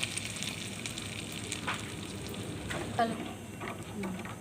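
Poppy seed and almond paste in hot ghee sizzling in a pan just after milk is poured in, with a spoon stirring and knocking against the pan a few times. The sizzle thins out about three seconds in.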